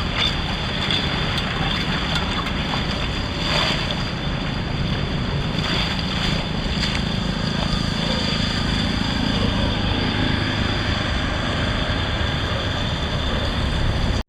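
Steady loud rush of floodwater pouring into a cleared street drain, with a few faint clicks over it; it cuts off abruptly at the end.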